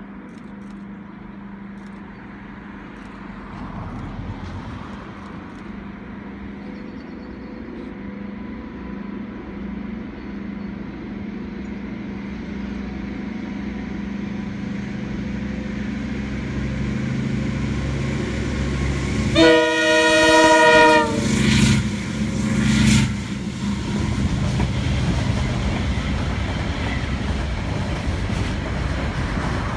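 A train approaching and passing, its engine drone growing steadily louder; about two-thirds of the way in it sounds its horn in one long multi-note blast, followed by a short second blast, then it rolls past.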